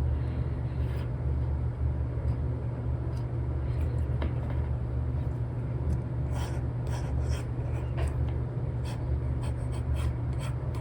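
Apple Pencil nib scratching and tapping in short strokes on a paper-textured iPad screen film while sketching, over a steady low background rumble.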